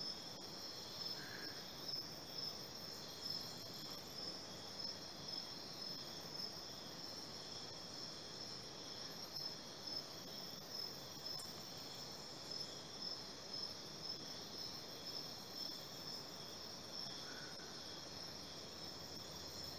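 Insects chirping in a steady, continuous high trill, over a faint background hiss.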